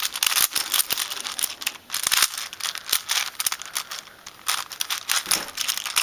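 Plastic layers of a 5x5 Rubik's cube being turned quickly by hand: a dense run of clicks and rattles, with a short lull about four seconds in.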